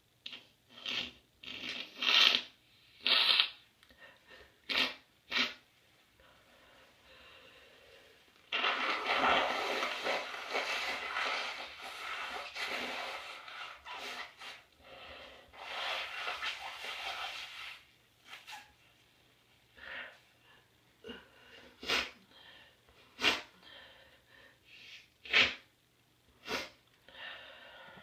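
A congested person sniffling: a run of short, snotty sniffs, then two long nose blows, then more short sniffs.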